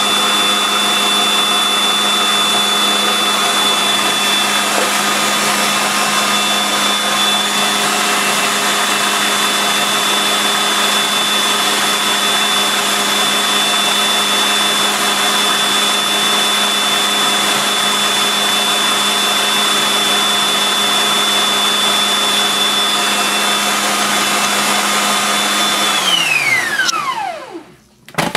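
Food processor motor running steadily with a constant whine as it purées chickpeas into hummus. Near the end it is switched off and the whine falls in pitch as the blade spins down to a stop.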